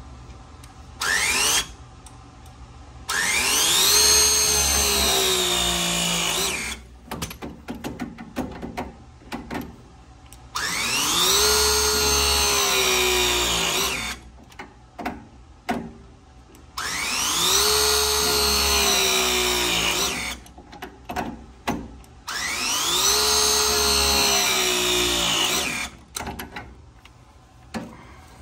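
Milwaukee cordless press tool crimping 1-inch press copper fittings. There is a brief burst of the motor about a second in, then four full press cycles of about three and a half seconds each. In each cycle the motor whines up, then drops steadily in pitch as the jaws close on the fitting, and stops. Short clicks come between the presses as the jaw is set on the next fitting.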